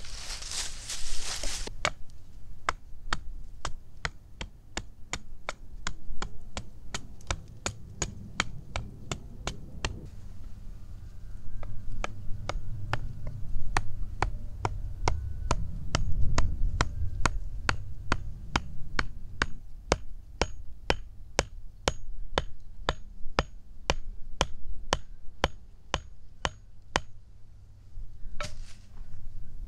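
Knife strokes carving a freshly cut green branch, each stroke a sharp click, about two a second and very regular. A short rustle of twigs comes at the start, with a low rumble underneath throughout.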